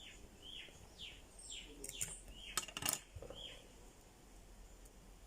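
A bird calling repeatedly, a series of short falling chirps over the first three and a half seconds, with two sharp clicks about two and a half and three seconds in.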